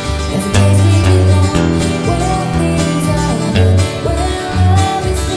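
Country-pop song: a woman singing long held notes over acoustic guitar and a steady bass beat.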